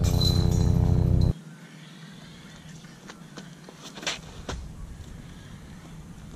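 A loud, steady motor drone with a low hum cuts off abruptly about a second in. Then there is quiet outdoor air with a handful of sharp taps and scuffs from the thrower's feet on a concrete tee pad as he runs up and throws a disc golf drive, the loudest click about four seconds in.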